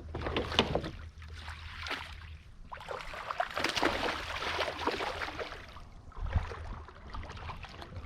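Water splashing and sloshing against a kayak in irregular bursts, with sharp slaps among them, over a steady low rumble.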